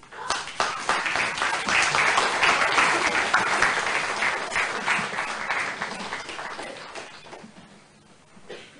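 Audience applauding. It swells quickly, is loudest a few seconds in, then dies away gradually.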